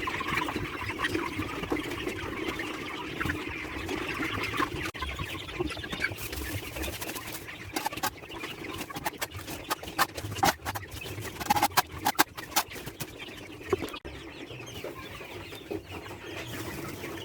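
A flock of chickens clucking steadily. About halfway through comes a run of sharp clicks and knocks, loudest near the end of that run.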